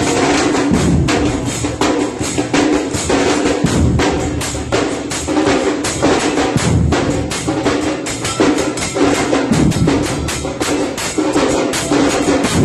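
A band of large bombo bass drums played in a fast, steady rhythm, with a heavier low boom about every three seconds.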